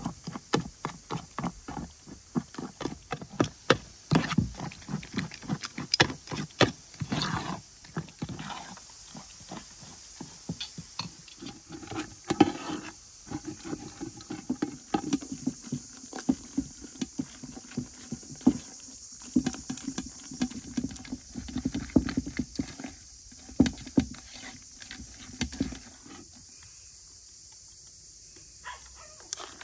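Metal ladle and colander knocking and scraping against metal pots as cooked wild plums are scooped and strained: a quick run of taps over the first several seconds, then sparser knocks, one louder knock near the middle.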